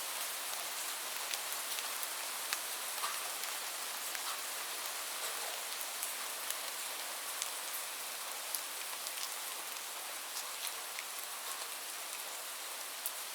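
Heavy rain falling steadily, an even hiss with many individual drops ticking sharply on a hard surface.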